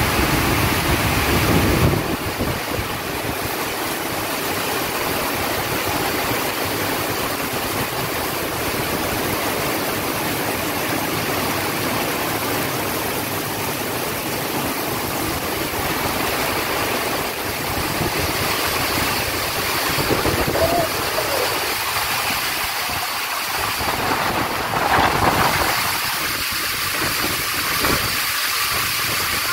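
Heavy rain pouring down in a steady, loud hiss on the wet ground and on parked cars.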